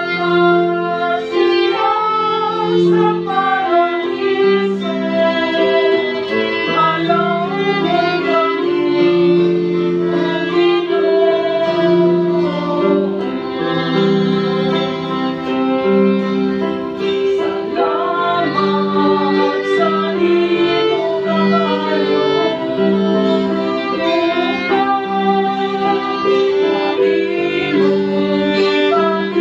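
Violin playing a melody over sustained chords on an electronic keyboard.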